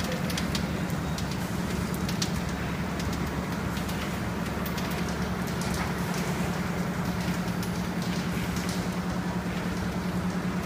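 Kraft paper bubble mailer bag making machine running: a steady machine hum with a fast, even pulse, and scattered light clicks and ticks over it.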